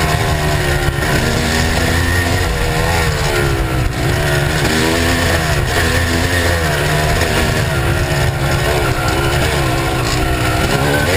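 Kawasaki KX250 dirt bike engine running under constantly changing throttle, its pitch rising and falling every second or two.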